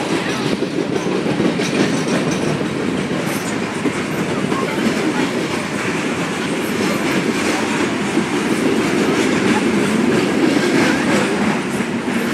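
Freight train of hopper cars rolling past: a steady rumble of steel wheels on the rails, with scattered clicks as the cars go by.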